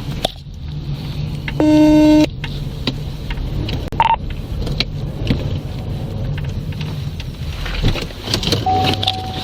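Steady low rumble of a vehicle. About two seconds in, a loud electronic beep lasting about half a second; a short higher chirp comes around four seconds in, and a steady higher tone starts near the end.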